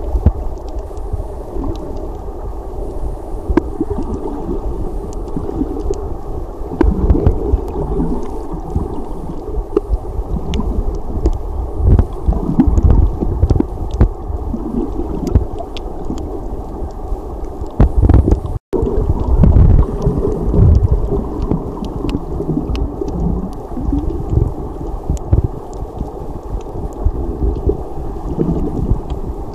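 Underwater sound of shallow near-shore reef water: a low, muffled rumble and slosh of wave surge, swelling and fading unevenly, with scattered sharp clicks. The sound cuts out for an instant about two-thirds of the way through.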